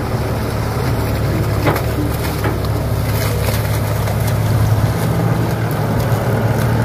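Kato crawler excavator's diesel engine running steadily, a low even drone with a few faint knocks.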